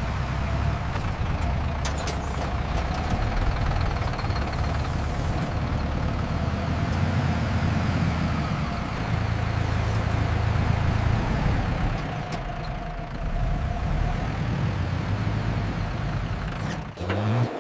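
A vehicle engine running steadily with a low rumble that swells and eases, dropping away near the end.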